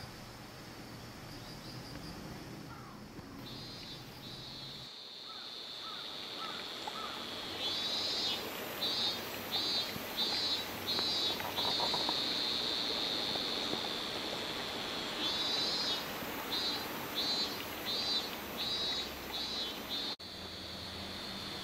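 Cicadas calling: a steady high buzz, joined about seven or eight seconds in by a pulsing call that repeats about twice a second, pauses briefly, then starts again.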